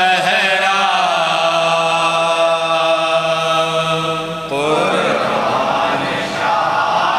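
Men chanting a noha, a mourning lament in Urdu: the voices hold one long note, then about four and a half seconds in the sound thickens into many voices chanting together.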